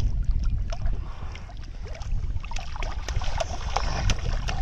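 Water splashing in quick, irregular splashes as a trapped fish thrashes inside a bamboo polo fish trap held down in shallow pond water, the splashes coming thicker in the second half, over a steady low rumble.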